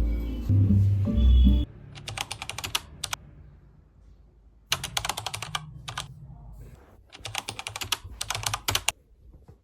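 Three bursts of rapid, light clicking taps, each lasting one to two seconds with short pauses between, typical of typing on a keyboard; music plays for the first second or so.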